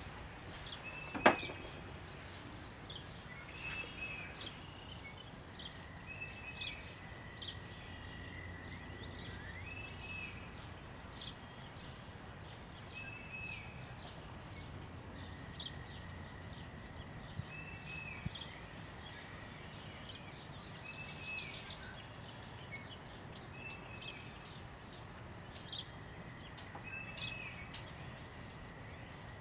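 Outdoor bird calls: many short, high chirps and whistles repeating throughout, over a low, steady background rumble. A single sharp tap sounds about a second in.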